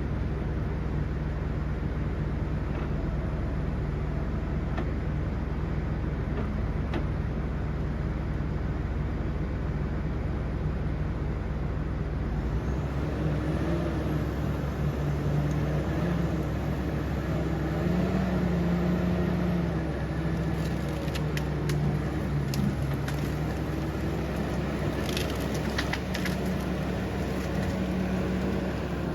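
Bulldozer's diesel engine running, its pitch rising and falling as it works under changing load, with scattered sharp cracks and clanks in the second half.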